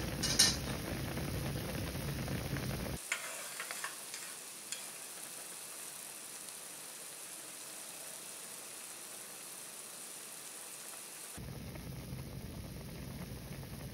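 Milky motsunabe broth boiling hard with noodles in a pot: a steady bubbling hiss. It is softer in the middle, where a few light clicks come about three to five seconds in.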